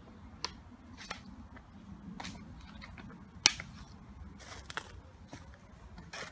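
Scattered small clicks and rustles, with one sharper click about three and a half seconds in, over a low steady rumble.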